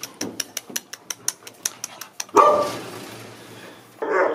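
A dog barks twice, once about halfway through and again near the end, each bark sudden and loud then tailing off. Before the first bark comes a quick run of sharp clicks, about six a second.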